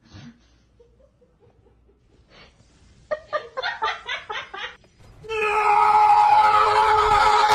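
A person laughing in a quick run of short bursts, followed about five seconds in by a loud, long, steady pitched sound.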